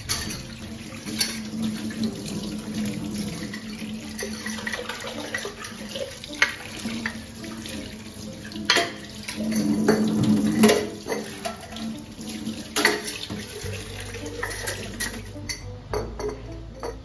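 Water running from a tap into a sink, with a few sharp knocks and clinks of items being handled in it.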